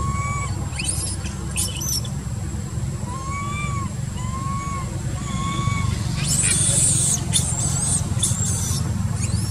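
A young macaque giving short, arched, whistle-like coos, roughly one a second, with a few higher, sharper squeals about a second in and again from about six seconds on, over a low steady rumble.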